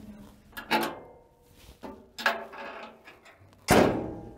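Metal knocks on a Cat 395 excavator's steel upper structure as a person steps along its side walkway, three in all about a second and a half apart. The last and loudest is the side compartment door banging shut.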